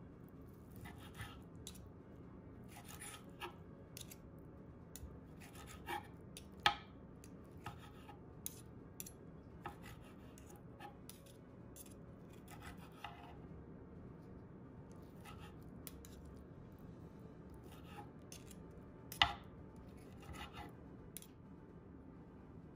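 Knife sawing through cooked steak on a wooden cutting board, with a fork holding the meat: short, irregular scraping strokes, and two sharper knocks, about a third of the way in and near the end.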